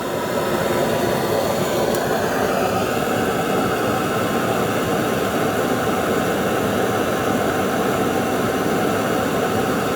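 Steady, loud rushing noise of the heat source running while a steel tool tip is brought up to red hot for hardening, growing slightly brighter about two seconds in.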